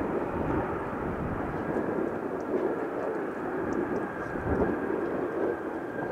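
Jet engines of a Boeing 787 airliner running as it rolls along the runway: a steady rushing rumble with a faint, even whine held on one pitch above it.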